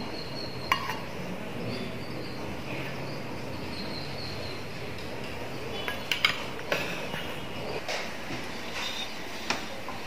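A few light clinks and clicks of kitchen utensils against a metal pan and dishes, over a steady faint hiss, with a small cluster of clinks about six seconds in.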